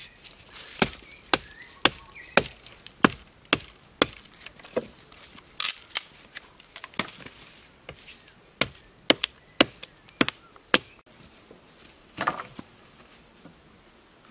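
Small hafted axe chopping a green sapling pole against a log: sharp wooden chops about two a second, then more spaced strikes, and a softer rustling clatter near the end.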